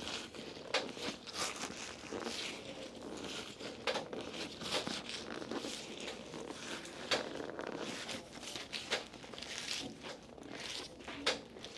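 Rustling and crinkling during a massage: hands rubbing and pressing over skin and fabric, irregular and scratchy, with a few short sharp clicks.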